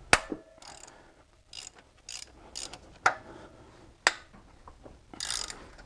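Ratchet wrench clicking in short bursts as cylinder head bolts are turned out of the engine block. A loud sharp click opens the sound, and single sharp clicks come about three and four seconds in.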